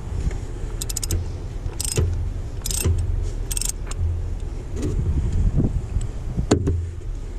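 Wind buffeting the microphone, with a series of short clicks, rattles and scrapes from hands handling parts in a car's engine bay, and one sharp click near the end.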